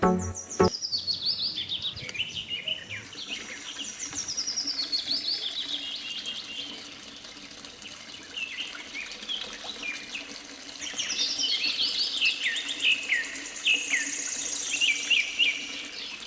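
Birds chirping: quick runs of short, falling whistled notes, with a quieter spell in the middle.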